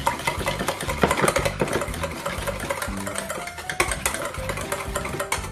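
Wire balloon whisk beating a runny egg-yolk and chocolate-cream batter in a stainless steel bowl: a fast, continuous clatter of the wires against the metal.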